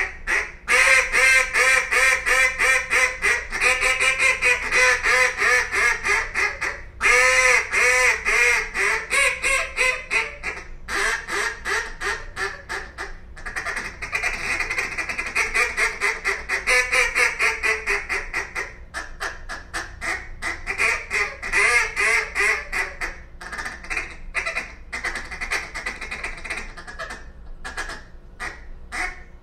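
Buck Gardner Buck Brush acrylic single-reed duck call blown by a caller: several series of rapid mallard-hen quacks, each note rising and falling in pitch, run through the call's range from top to bottom. The sequences are loudest in the first few seconds and grow softer toward the end, with short breaks between them.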